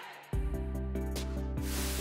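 Background music with a strong bass and held notes comes in about a third of a second in. Near the end a hissing whoosh sound effect rises over it.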